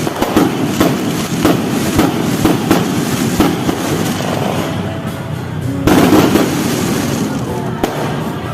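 Fireworks going off: a run of sharp bangs roughly every half second to second, then a louder, longer burst about six seconds in. Music and voices run underneath.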